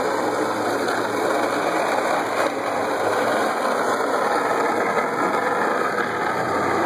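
Steady rolling noise with a car engine running underneath, heard while being towed on a rope behind the car over a concrete garage floor.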